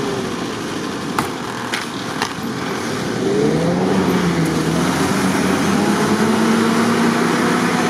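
UAZ 469 engine revving under load while the jeep is stuck in deep snow and being pushed free. The revs sag, then climb about three seconds in and are held up, with a few sharp knocks in the first seconds.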